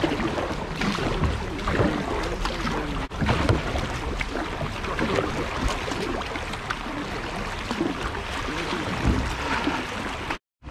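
Kayak paddle strokes: the blades dip and pull through calm canal water, splashing and dripping at each stroke.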